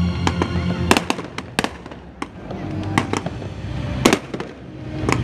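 Fireworks going off in a string of sharp bangs, some close together and the loudest about a second apart, over music playing throughout.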